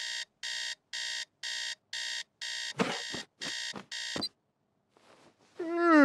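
Cartoon digital alarm clock beeping, about two beeps a second. A few thuds land among the last beeps as a hand slaps at it, and the beeping stops after about four seconds. Near the end a man starts a long yawn that falls in pitch.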